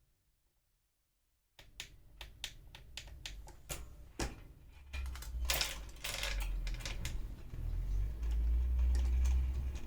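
Road bike drivetrain clicking as the rear derailleur is shifted down to the smallest cassette cog: rapid, irregular clicks starting about a second and a half in, with a low rumble underneath from about five seconds in.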